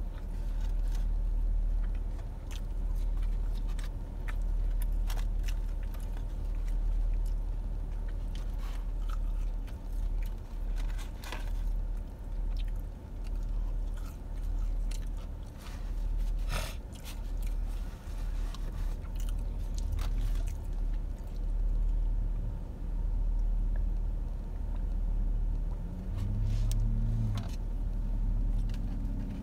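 Close-up chewing and biting of fried breaded chicken fingers, with scattered crunches and mouth clicks, over a steady low rumble inside a car.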